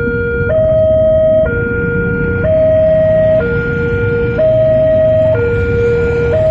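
Railway level-crossing warning alarm sounding: a loud two-tone hi-lo signal, each tone held about a second, alternating steadily, warning that a train is approaching.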